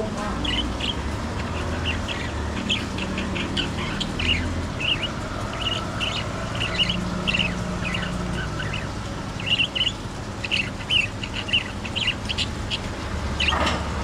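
A cage of budgerigars chirping and chattering: many short, quick chirps overlapping, over a steady low rumble.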